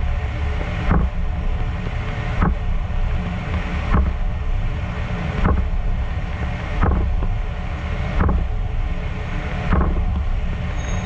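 DN Solutions Puma TT2100SYYB CNC lathe running steadily while cutting an internal thread in Haynes 188 superalloy, with a short sharp sound about every one and a half seconds as the threading tool makes pass after pass.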